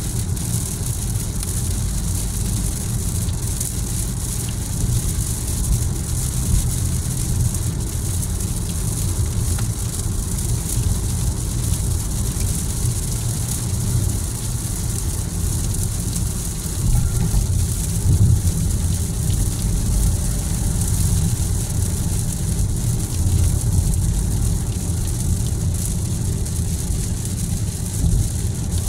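Steady road noise inside a car's cabin at highway speed on a rain-soaked road: a low rumble of tyres and engine under a steady high hiss of wet tyres and rain.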